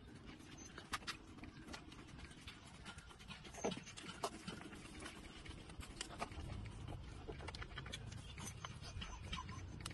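Puppies suckling at their mother dog's teats: a run of soft sucking clicks, with a short squeak near the middle.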